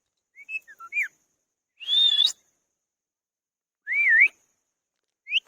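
Indian ringneck parrot whistling: a few short chirpy notes, then a loud, partly raspy whistle about two seconds in and a wavering whistle about four seconds in.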